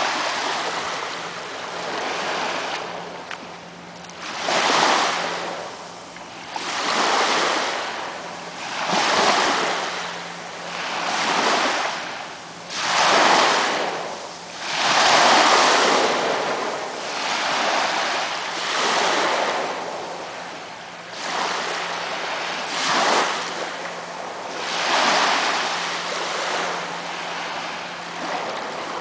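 Small waves washing up onto a sandy shore, each one swelling and fading away about every two seconds.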